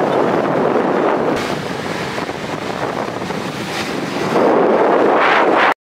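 Wind buffeting the microphone of a camera held by a passenger on a moving motorbike: a steady rushing noise that grows louder about four seconds in and cuts off abruptly just before the end.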